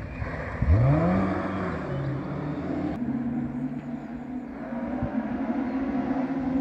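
Small-engined 1400 cc-class rally car revving, its pitch sweeping sharply up about a second in as it pulls away, followed by a steadier, quieter engine drone.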